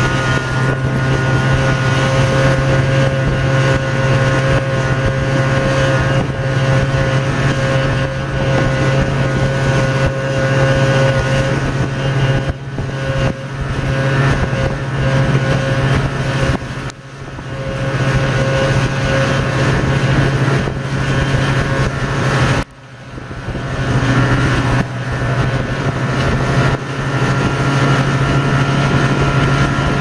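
Snowmobile engine running steadily while under way, heard from on the move. The engine note dips briefly a few times in the second half, most deeply about two-thirds and three-quarters of the way through.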